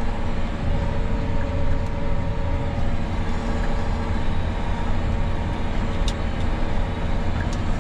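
John Deere 9R 490 articulated tractor's diesel engine running steadily, heard from inside the cab as a deep drone with a steady hum, and a couple of faint clicks near the end.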